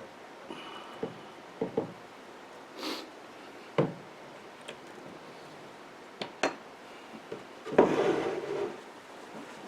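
Wooden table parts being handled and fitted together: scattered light knocks and clicks of wood against wood, with a brief scrape about three seconds in and a louder rub lasting under a second near the end.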